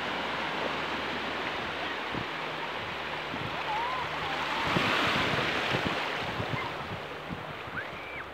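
Small sea waves breaking and washing up over a flat sandy shore: a steady surf hiss that swells about five seconds in as a wave comes up the sand.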